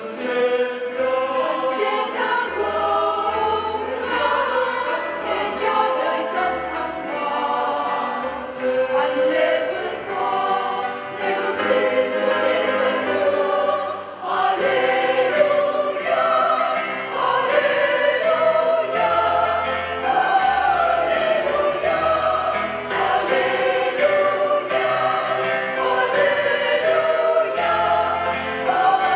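A mixed church choir of women's and men's voices singing a Vietnamese Easter hymn in full voice, with a brief breath about halfway through.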